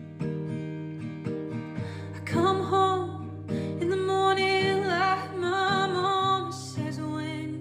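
Background music: acoustic guitar plucked at an even pace, joined about two seconds in by a singing voice.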